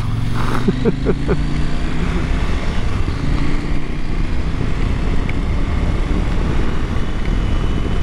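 Husqvarna Norden 901's parallel-twin engine running steadily while riding, under a constant rush of wind and road noise.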